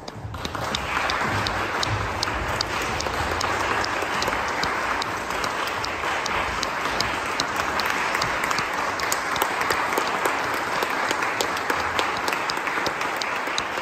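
An audience applauding, swelling in the first second and then steady.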